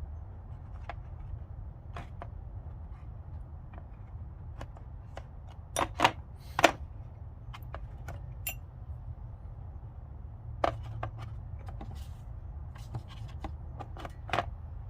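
Irregular clicks and clacks of metal Torx bit sockets being handled and set back into their plastic case, with a few sharper knocks about six seconds in. A steady low hum runs underneath.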